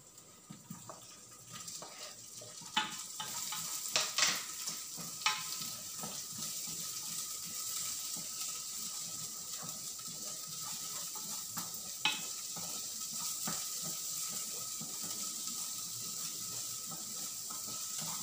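Chopped onion and garlic sizzling in oil in a small pot, the sizzle building over the first few seconds and then holding steady. A few sharp clinks of the stirring spoon against the pot.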